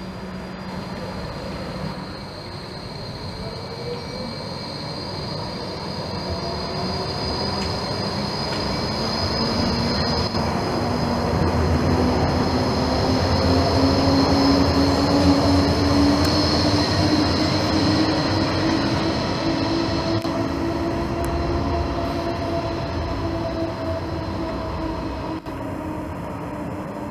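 Green Basel low-floor tram (Bombardier Flexity) passing close by: the whine of its electric traction drive glides upward in pitch and holds, over the rumble of steel wheels on the rails, with a high steady whistle above. The sound swells to its loudest about halfway through as the tram runs right beneath, then eases off.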